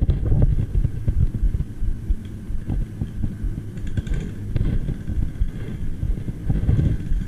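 A low, uneven rumble.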